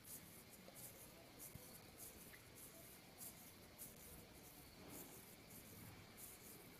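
Near silence, with faint, irregular soft rustles as hands squeeze and roll crumbly besan ladoo mixture.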